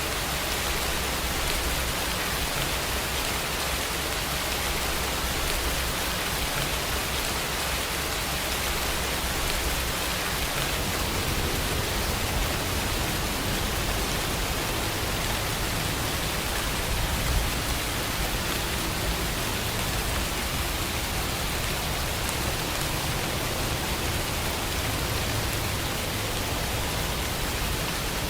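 Steady rain falling in an even hiss.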